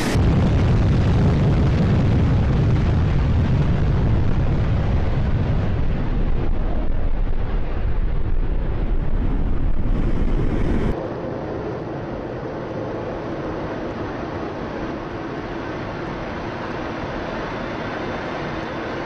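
An F-16 fighter's jet engine at full power on takeoff, a loud, deep, steady rumble. About eleven seconds in it cuts sharply to a quieter, steady rush of engine and air noise heard inside the cockpit in flight.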